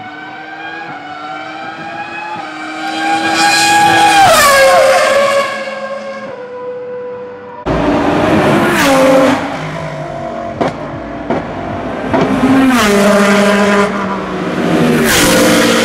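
Racing car engines at full throttle: one car's note rises as it approaches, drops sharply as it passes about four seconds in, and fades. About eight seconds in another loud racing engine takes over, its note stepping down in pitch several times.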